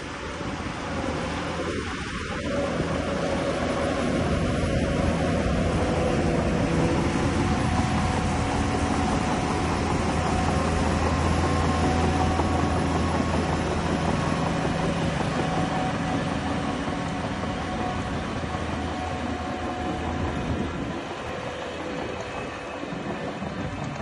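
Heavy diesel earthmoving machinery running under load: a steady engine drone over a dense mechanical rumble. It grows louder over the first few seconds and eases off somewhat near the end.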